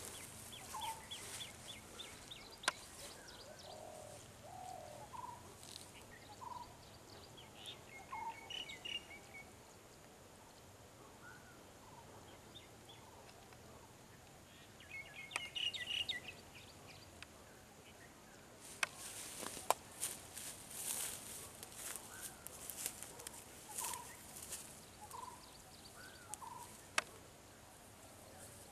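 Wild birds calling: scattered short whistled notes and a couple of chittering trills. Rustling and swishing of footsteps through tall grass, strongest about two-thirds of the way through, with a few sharp clicks.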